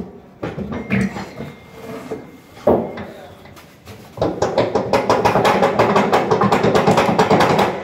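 A steel washing-machine drum clattering against its plastic tub as it is rocked and worked loose. A few separate knocks come first, then a loud fast rattle of about ten strikes a second starts about four seconds in and runs for over three seconds.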